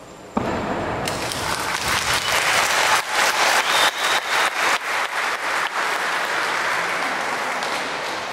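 Audience applause, breaking out suddenly about half a second in, growing denser in the middle and tapering off near the end.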